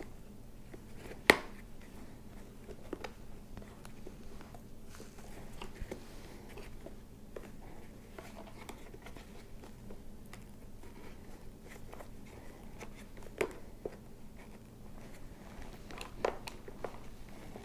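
Hands working a padded cheek liner into a Shoei Neotec 2 helmet: fabric and foam rustling, with a sharp click about a second in and two more near the end as the liner's snap fasteners press home.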